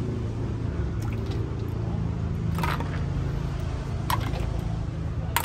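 Wet squishing of food being spooned and handled, with a few short clinks, over a steady low background hum.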